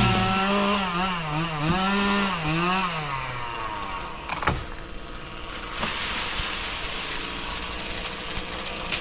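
Chainsaw cutting through a spruce stem high up, its pitch rising and falling as the engine revs under load for the first few seconds, then a sharp thump about four and a half seconds in. The engine keeps running fainter afterwards.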